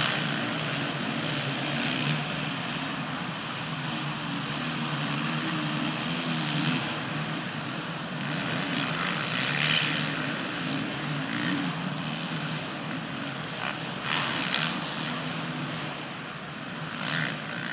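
Several supercross dirt bike engines revving and racing together, their pitch rising and falling as the riders work the throttle.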